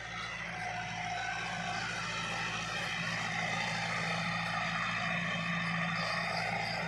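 Massey Ferguson 385 tractor's diesel engine running steadily under load while pulling a disc harrow through ploughed soil, growing louder about a second in as it comes close.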